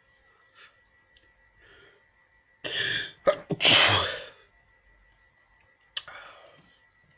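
A person sneezing: a loud burst of sneezes about three seconds in, then one more short, sudden sneeze near the end.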